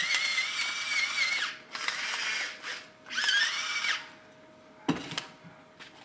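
Battery-powered salt and pepper grinders running in short bursts. A high motor whine lasts about a second and a half, a short grinding stretch follows, and a second whine comes about three seconds in. A sharp click comes near the end.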